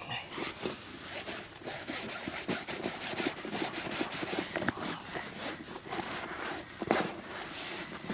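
Hands mixing and kneading damp fishing groundbait of pearl barley and bloodworm in a container, a continuous busy rubbing and scraping with one louder knock about seven seconds in.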